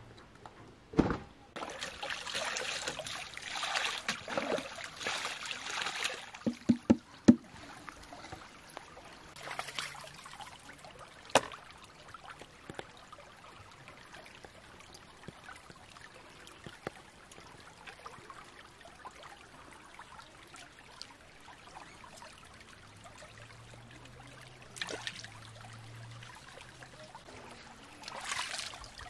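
Water trickling and splashing, loudest for a few seconds near the start. A few sharp knocks come a few seconds in, and there is a brief splash of hands in stream water near the end.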